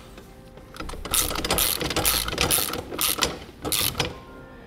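Rhythmic metallic clicking from the rebuilt sidewind gearbox of a Bulldog square trailer jack as it is worked, about three clicks a second for roughly three seconds.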